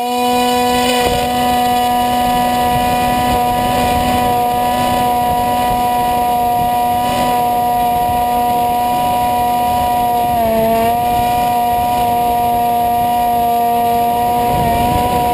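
Electric motor and pusher propeller of a Multiplex EasyStar foam RC plane, recorded from a camera mounted on the plane itself. The motor reaches full power right at the start and holds a loud, steady pitched hum, whose pitch dips briefly about ten seconds in.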